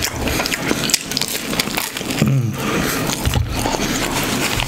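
Close-up chewing and mouth sounds of a person eating a chicken sandwich: wet smacking clicks that come thick and fast throughout, with a brief hum of the voice about two seconds in.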